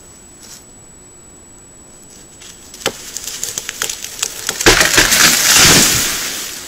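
A beaver-gnawed tree cracking and splintering at its chewed-through base, the sharp cracks coming faster and faster. About two-thirds of the way through, the tree crashes down through the branches to the ground, then the crash fades.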